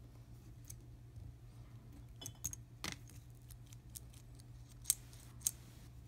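Small metal clicks and taps as the roller-lever arm of a pneumatic valve is handled and fitted back onto the valve body, with the sharpest clicks near the middle and about five seconds in, over a steady low hum.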